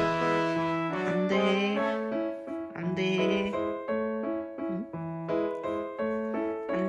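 Background music: a light melodic tune of short notes, with a few sliding notes.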